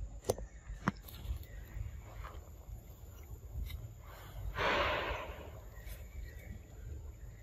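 A few faint sharp clicks, then one short, breathy snort about four and a half seconds in, over a low steady outdoor rumble.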